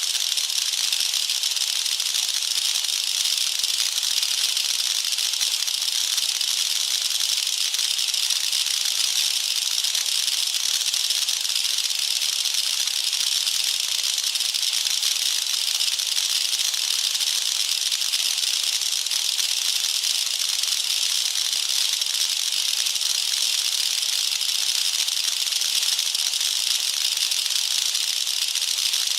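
Designed sci-fi electric field sound effect: a steady, dense, high-pitched crackle of tiny particle-like clicks, even in level throughout.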